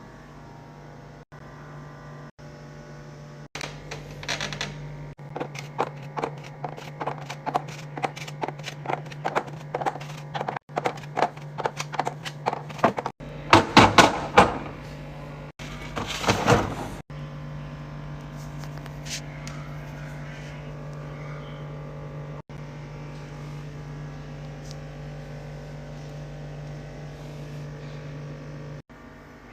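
Groceries and plastic containers being handled and set into a refrigerator during restocking: a long run of quick clicks and knocks, then two louder clattering bursts, over a steady low hum.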